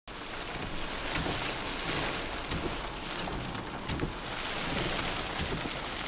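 Wind rushing over the microphone: a steady hiss with a few faint knocks.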